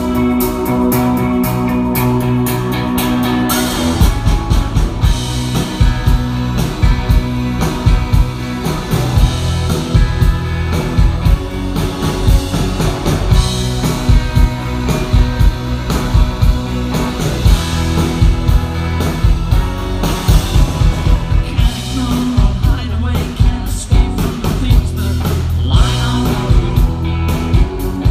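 Live rock band playing: a guitar alone at first, then drums and bass come in about four seconds in and the full band plays on.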